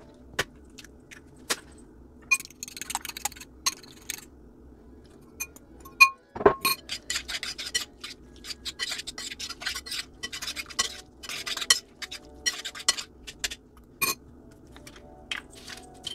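A metal fork clinking and scraping against a ceramic mixing bowl while stirring a wet, chunky mixture: irregular clicks and bursts of scraping, with one sharp ringing clink about six seconds in.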